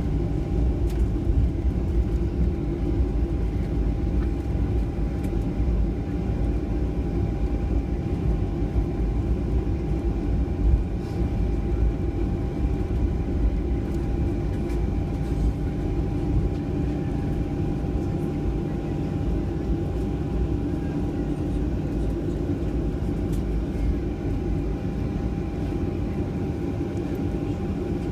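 Cabin noise of a Boeing 737-700 taxiing: its CFM56-7 engines running at low taxi thrust with a steady low rumble and a thin steady whine, and the airliner rolling over the taxiway, with a light bump about eleven seconds in.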